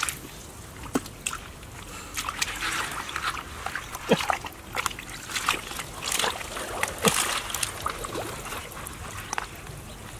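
Hands groping and sloshing through shallow muddy water: irregular small splashes and squelches all through, as mud and water are stirred while feeling for fish.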